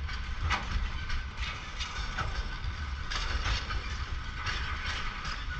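Freight train wagons, boxcars and then tank cars, rolling past on the rails: a steady low rumble with repeated clicks of the wheels crossing rail joints.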